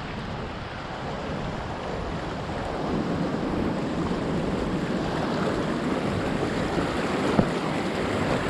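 Pacific Ocean surf roaring steadily, swelling a little about three seconds in, with wind buffeting the microphone.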